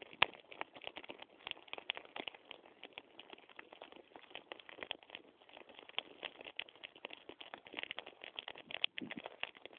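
Dry grass burning in a low line of flames across a field, crackling with dense, irregular sharp snaps; one louder snap comes right at the start.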